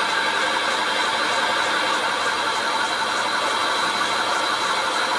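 Machine-shop machinery running steadily, a continuous whine over an even hiss.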